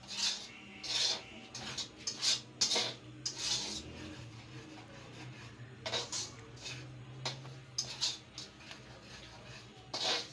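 Spatula scraping and stirring dry semolina around a thin iron kadhai in quick, irregular strokes, as the semolina is dry-roasted toward light brown. A low steady hum runs underneath.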